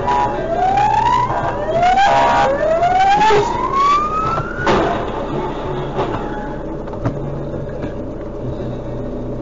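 Three rising whines, the last the longest, then a sharp bang of a car collision about halfway through, with a couple of smaller knocks after it.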